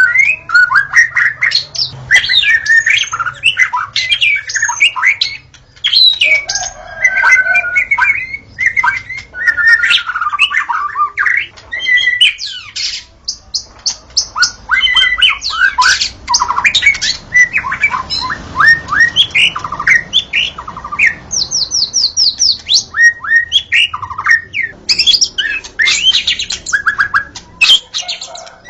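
White-rumped shama (murai batu) singing a long, varied song of whistled phrases, sliding notes and harsher calls, with several fast runs of repeated notes and only brief pauses.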